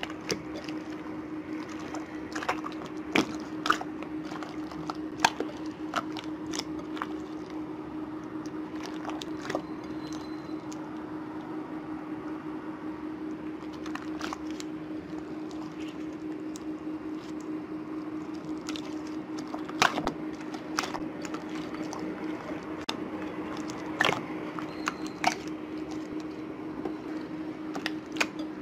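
Orange glue-and-detergent slime being kneaded and squeezed by hand in a glass bowl: wet squelching with irregular sharp pops and clicks, the loudest about twenty seconds in, over a steady low hum.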